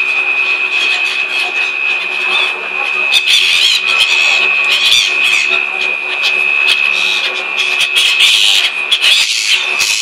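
Black-headed gulls calling in repeated short squealing bursts, thickest about three to five seconds in and again near the end, over a steady mechanical hum with a constant high whine.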